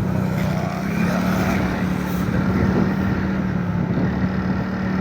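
Motorcycle engine running at a steady cruise, a constant hum with road and wind noise, its pitch rising slightly about a second in.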